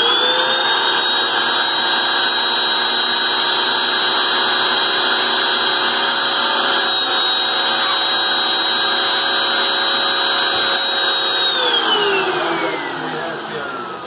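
Vacuum cleaner running with its hose sucking the air out of a tied plastic garbage bag. The motor whine rises as it spins up at the start, holds steady, then falls away as the motor winds down near the end.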